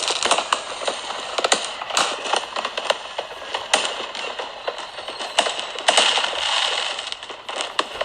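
Fireworks sound effect: a rapid, irregular string of sharp pops and crackles, with a denser burst of crackling about six seconds in.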